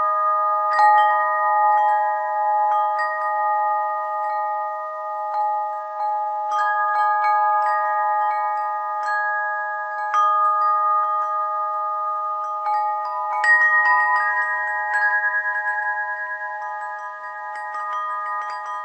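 Bell-like chimes struck at irregular moments, every second or two, on a handful of fixed high notes. Each note rings on for many seconds, so the tones overlap into a continuous shimmer, with one stronger strike past the middle.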